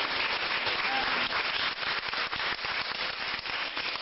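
Audience applauding: a dense patter of many hands clapping.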